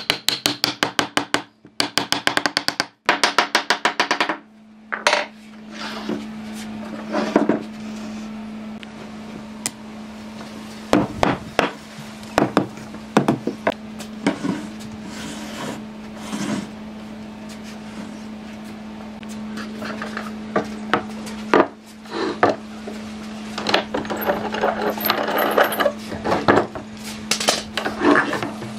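Rapid, evenly spaced hammer blows on wood in the first four seconds, as a pine upright is driven into its mortise in the base block. After that come scattered knocks and rubbing of boards being handled, over a steady low hum.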